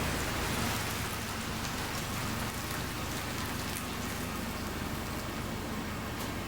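1999 Subaru Outback on the move: steady tyre and road noise with a low engine hum underneath.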